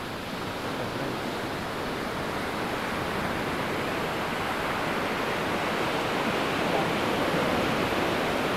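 Ocean surf on the beach: a steady rush of waves that swells slowly louder.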